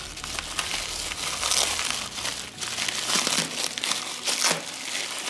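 Plastic bubble wrap crinkling and rustling as it is unwrapped by hand, with sharper crackles now and then.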